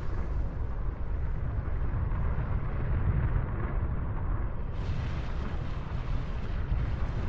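Deep, steady rumble of a volcanic eruption as its ash cloud billows, with a rushing hiss that turns brighter about five seconds in.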